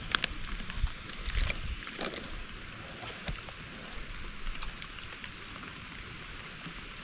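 Steady wind and water noise around a small fishing boat, with a few sharp clicks and knocks and some low rumbling in the first few seconds.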